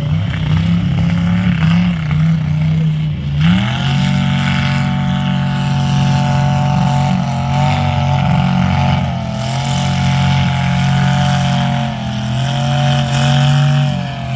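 Off-road mud-bog vehicle's engine held at high revs. Its pitch jumps up about three and a half seconds in, then holds steady with small wavers.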